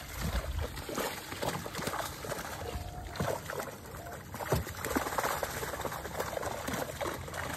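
Water splashing and pouring as a cast net full of mullet is hauled up against a boat's side, the netted fish thrashing at the surface in irregular splashes.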